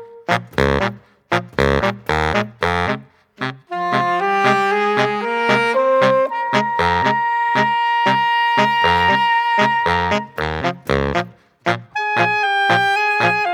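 Music with a drum beat, joined about four seconds in by a held, pitched melody line.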